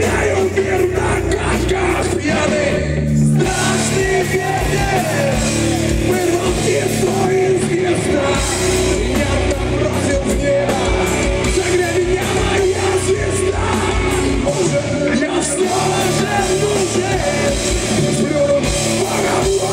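Live rock band playing loud and steady, with distorted guitars and drums under a shouted, sung vocal, heavy-metal style.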